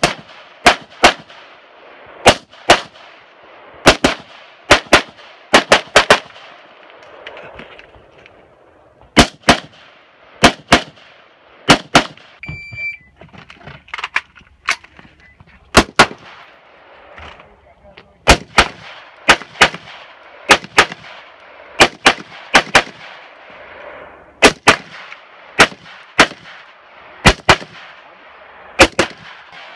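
AR-15 rifle fired rapidly in quick pairs of shots, each sharp crack trailed by a short echo, with gaps of a second or two between strings.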